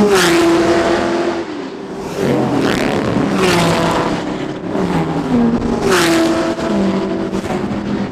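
Classic racing cars passing at speed one after another, each engine note dropping in pitch as it goes by. Several pass-bys in quick succession, with the next car's engine rising in as the last one fades.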